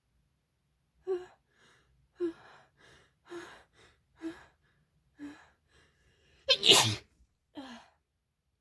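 A woman sneezing repeatedly with a cold: short sharp bursts about once a second, building to one much louder, longer sneeze about two-thirds of the way through, then a shorter burst after it.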